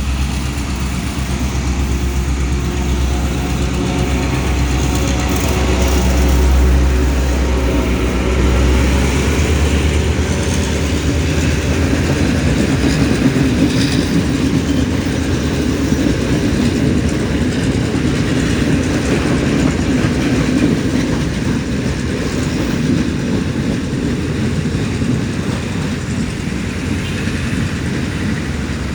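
Sri Lanka Railway M7 class diesel-electric locomotive pulling a passenger train away from a station, its engine running under load with a strong low drone for the first ten seconds or so. The sound then gives way to a steady rumble of the train rolling along the track.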